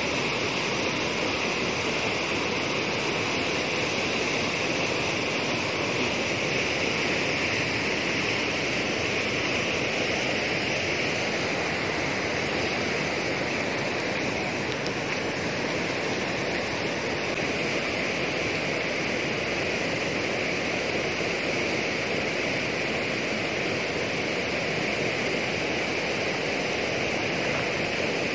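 Steady rush of a lake's overflow water churning fast down a concrete channel, running high after rain.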